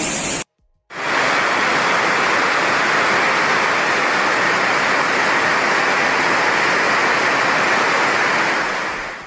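Torrent of floodwater rushing down a swollen channel: a loud, steady rushing noise. It drops out briefly about half a second in, then runs on and fades near the end.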